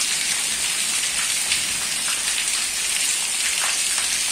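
Heavy rain falling steadily on a street and roofs: an even hiss with a few scattered drips ticking through it.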